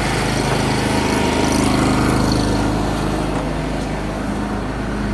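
A motor running steadily with a droning hum that swells briefly about two seconds in.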